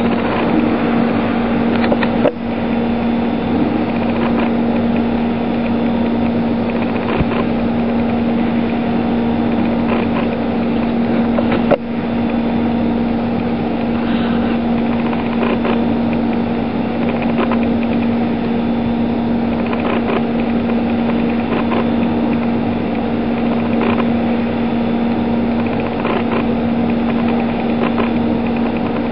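Milling machine cutting aluminium under mist coolant: a steady spindle hum with the hiss of the coolant spray and the noise of the cutter, broken by a few short clicks.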